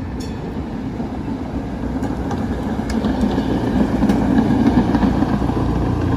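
An old rail streetcar running on its tracks: a low rumble with faint clicks that grows louder toward the middle and end as it comes closer.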